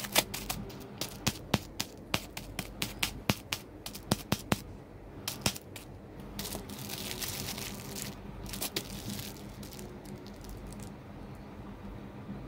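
Thin OPP plastic bags of inoculated soybeans being pierced again and again with a sharp point to make air holes for tempeh fermentation: a quick run of sharp ticks for the first few seconds, then a few more ticks. Plastic crinkles as the bags are handled, most clearly midway through.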